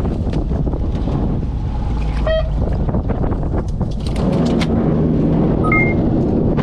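Fishing boat underway: engine rumble with wind buffeting the microphone and water noise, a low hum coming in about four seconds in, and two short electronic beeps.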